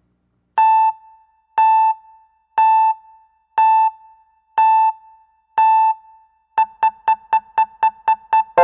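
Electronic beeps of one steady pitch, like a countdown timer: six beeps a second apart, then quickening to about four a second for the last two seconds.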